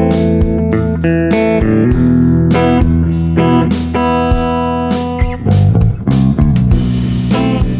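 Eight-string electric guitar played with a clean tone: a run of plucked notes and chords that ring on, reaching down into the low bass strings.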